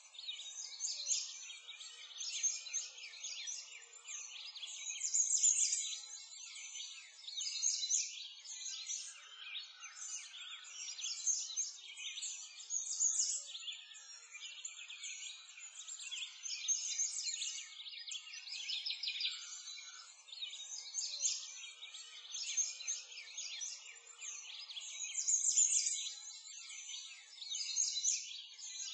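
A chorus of many small songbirds chirping and twittering together without a break, rising and falling a little in loudness.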